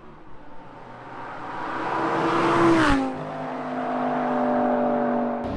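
Lamborghini Gallardo LP560-4's straight-piped V10 passing at speed: the engine note rises and grows louder up to about three seconds in, then drops sharply in pitch as the car goes by and holds a lower steady note.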